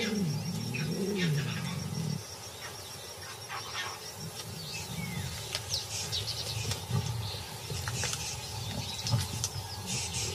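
Wild animal calls: a low call that rises and falls twice over the first two seconds, then scattered short high chirps over an irregular low rumbling.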